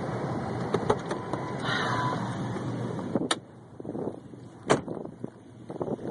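1997 Ford Explorer Sport 4x4 driving in snow: a dense rushing vehicle noise, then two sharp knocks about three and four and a half seconds in, after which it goes much quieter.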